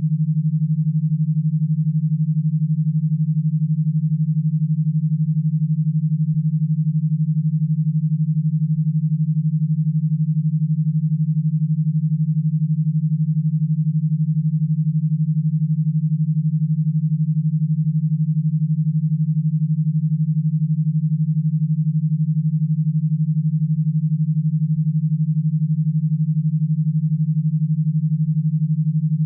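Synthesized e-stim signal: one steady low electronic tone, pulsed rapidly at a 12 Hz rate and unchanging throughout.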